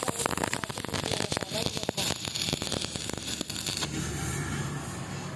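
Electric arc welding crackling and sputtering, dense and irregular. It stops about four seconds in, leaving a steady low hum.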